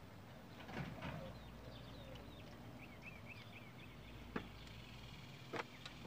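Faint clicks and knocks of a metal multi-tool Allen key working the stem's top-cap bolt on a bicycle headset, a few sharp ones spaced out. A bird chirps a quick run of five short high notes about three seconds in.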